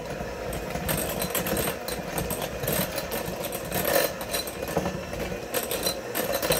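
KitchenAid electric hand mixer running steadily, its beaters churning softened cream cheese with green onions and shredded cheese in a glass bowl, with irregular clicks of the beaters against the glass.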